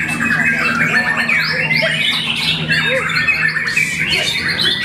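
Several white-rumped shamas (murai batu) singing at once: a dense, overlapping stream of rapid whistles, trills and chatter.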